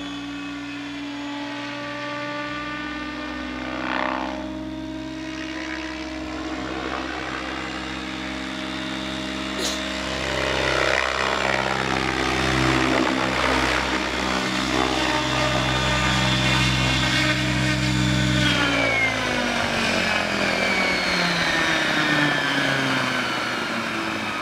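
Align T-Rex 800 RC helicopter carrying a spray tank, flying: a steady rotor-and-drive drone that grows louder as it passes close, then falls steadily in pitch over the last several seconds as the rotor spins down after landing.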